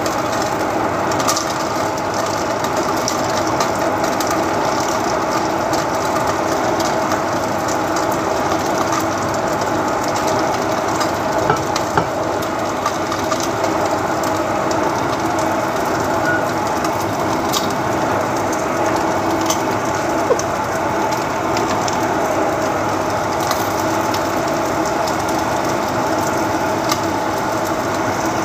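Lamb pieces sizzling steadily as they brown in hot oil in a heavy enamelled pot, with scattered sharp pops.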